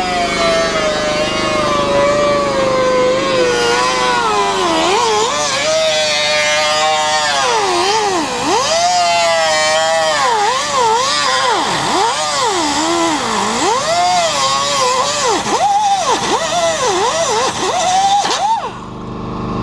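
High-speed power tool cutting out rusted sheet metal from the car body. Its whine slides down at first, then keeps dipping and recovering as the tool is pressed into the metal, and it stops near the end.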